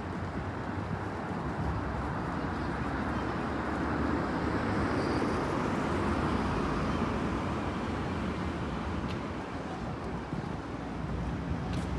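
City street ambience: a steady wash of traffic noise that swells for a few seconds in the middle, as a vehicle goes by.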